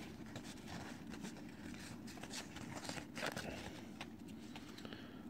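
Faint rustling and soft clicks of trading cards being slid and shuffled from one hand to the other, a few short rustles standing out over a low steady background.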